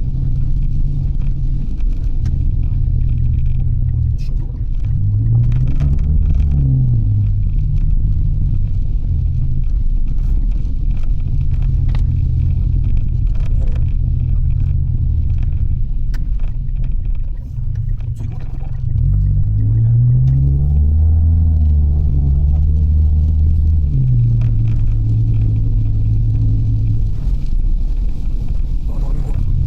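Mitsubishi Delica driving, its engine's low hum stepping and gliding up and down a few times as it speeds up and slows, with a steady road rumble.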